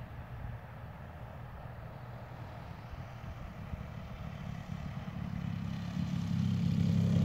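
Freshly rebuilt Desert Aircraft DA-120 two-stroke gas engine of a large RC aerobatic plane running at low throttle through a canister exhaust, a steady low drone. It grows steadily louder toward the end as the landed plane rolls in closer.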